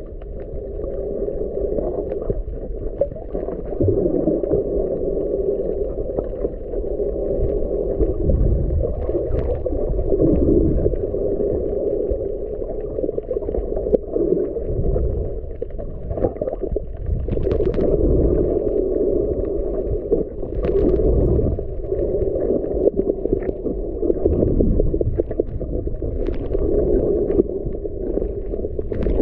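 Muffled underwater noise picked up by a submerged camera: a steady low rush of water with deeper rumbling swells every few seconds and a few faint clicks.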